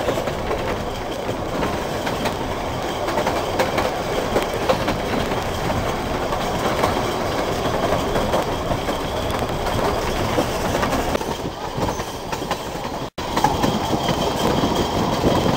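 Narrow-gauge railway carriage running along the line, heard through its open window: a steady rumble and rattle of wheels on rails with frequent sharp clicks. The sound cuts out for an instant near the end.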